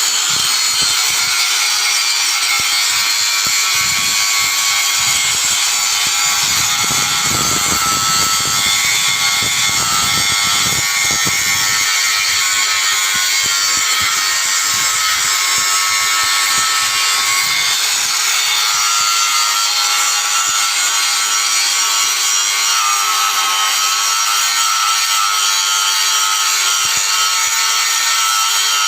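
Portable line boring machine running, its boring bar cutting metal with a steady scraping hiss and a faint whine, and a low rumble for a few seconds partway through.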